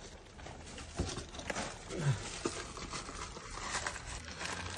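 A few scattered light clicks and knocks as parts are handled during an oil filter change, with a brief murmured voice about two seconds in.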